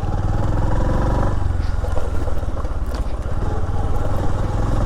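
Bajaj Platina motorcycle's single-cylinder four-stroke engine running steadily while riding.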